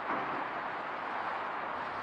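Jet engines of a Boeing 737 airliner at takeoff power, climbing out just after leaving the runway: a steady, even jet noise.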